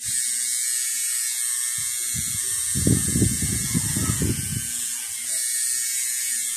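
Electric tattoo machine buzzing steadily as the needle works ink into the skin, starting abruptly, with a louder low rattling for a couple of seconds in the middle.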